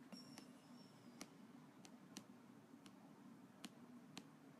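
Near silence with a few faint, sparse clicks of a stylus tip tapping a tablet surface during handwriting.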